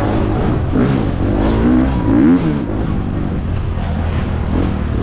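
FX350 dirt bike's single-cylinder four-stroke engine revving up and down as it is ridden hard on the throttle, its pitch rising and falling several times in the first half, then holding steadier.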